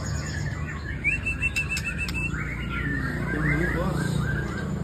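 White-rumped shama (murai batu) singing: a quick run of about eight repeated high notes about a second in, then varied rising and falling warbled phrases, over a steady low hum.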